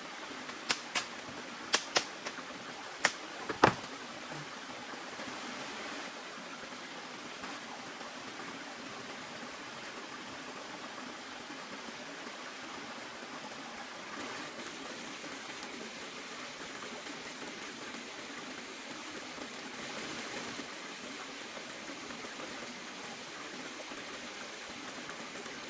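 Steady rushing of running water, with a quick run of seven sharp knocks in the first four seconds, the last the loudest.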